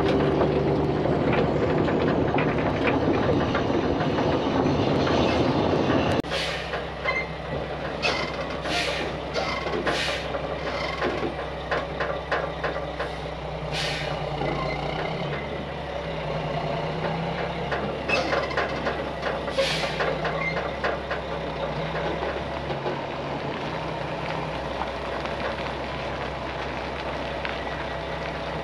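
Mack truck's diesel engine running, with several short sharp air hisses from its air brake system a few seconds apart. A louder engine sound in the first six seconds stops abruptly, leaving the steadier idle.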